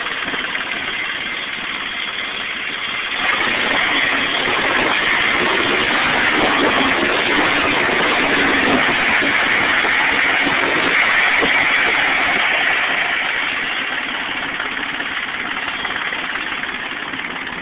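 Turbocharged IH 284 tractor engine running. It steps up to higher revs about three seconds in, holds there for about ten seconds, then eases back down.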